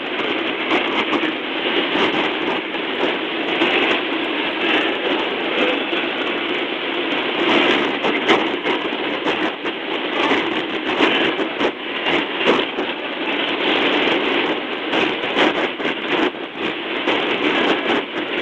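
Shortwave radio receiver tuned to KBS Hanminjok on 6.015 MHz: a steady hiss full of crackling static, with a narrow, muffled sound that stops above about 4 kHz. The signal is weak and rated 32232 on the SINPO scale, meaning heavy interference and fading, so no programme stands out clearly through the noise.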